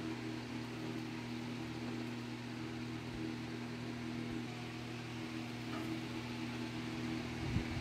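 Steady low mechanical hum with hiss, like a fan or appliance running, with a few soft low thumps near the end.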